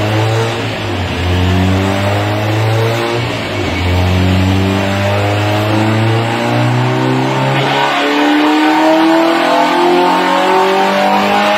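Honda H22A four-cylinder engine in a Civic, loaded on a chassis dyno and revving steadily higher in a dyno pull. About eight seconds in the sound changes: the deepest tones drop away and it turns harsher as the revs keep climbing.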